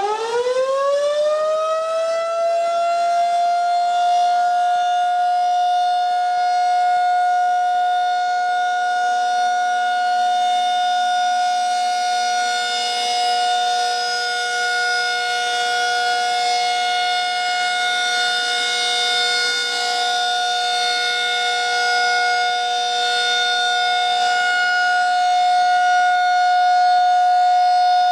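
Federal Signal 2001-SRN rotating dual-tone siren sounding the steady alert signal. It finishes winding up in the first second, then holds a steady two-tone wail that swells and fades slightly as the horn turns.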